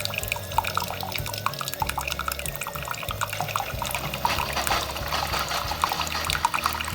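Bosch Tassimo coffee machine dispensing hot water into a cup: water trickling and dripping from the spout over a low steady hum from the machine.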